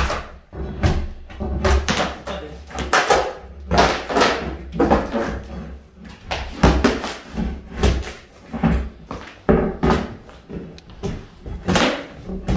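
A run of knocks and scraping thuds, roughly one or two a second, from hand tools prying and scraping at staples in a stapled plywood underlayment floor.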